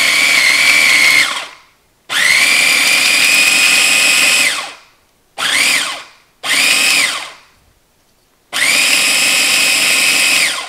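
Small Cuisinart food processor motor chopping fresh dill and parsley in pulses: a run that stops about a second in, then four more, the middle two short, each with a whine that rises as the motor spins up and falls away as it stops.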